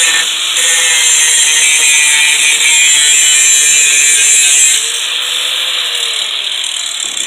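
Handheld electric angle grinder running against metal, grinding rust off with a steady hiss and motor whine; the level drops a little about two-thirds of the way through.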